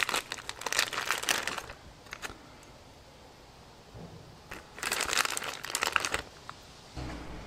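Clear plastic parts bag crinkling as fingers dig through the loose needle roller bearings inside it, in two spells with a quiet pause between, the second starting about halfway through.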